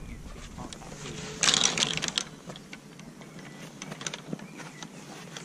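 A short burst of rustling and clicking close to the microphone, lasting under a second, about a second and a half in, with a few lighter clicks after it over a quiet outdoor background.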